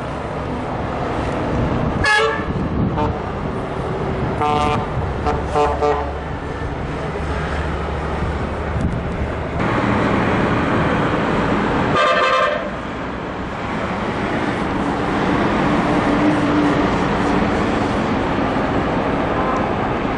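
Bus horns sounding in several short toots, two of them close together and one longer blast later, over the steady rumble of engines and road traffic.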